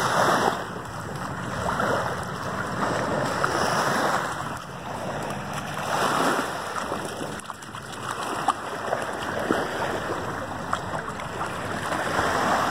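Small waves washing up on a muddy shore, breaking and drawing back in surges every couple of seconds.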